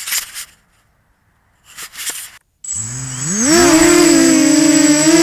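Electric motors and propellers of a remote-control model aircraft spin up about two and a half seconds in, the whine rising fast in pitch and then running steady and loud at takeoff power, with a constant high whistle above it. Before that, two short rustling noises.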